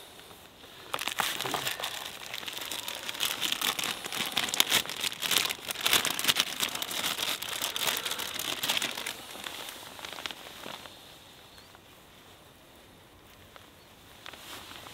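Plastic food packaging crinkling as it is handled and unwrapped: a clear plastic bag and a wrapper, rustling in a dense run of crackles from about a second in until about eleven seconds in.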